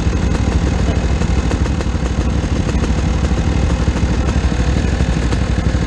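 Motorcycle engines idling steadily with a low, even pulsing rumble.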